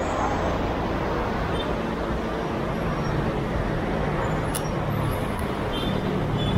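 Steady noise of busy city road traffic, cars and motorbikes passing on a multi-lane road.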